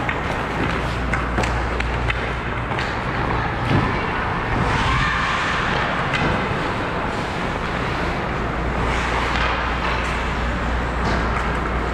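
Hockey skates scraping and gliding on rink ice, with scattered sharp clicks of sticks and puck, over a steady low rumble.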